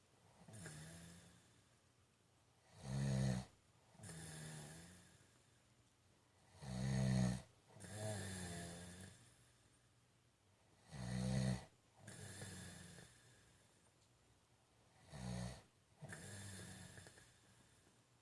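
A man snoring in his sleep: four loud, rasping snores about every four seconds, each followed by a softer, longer breath.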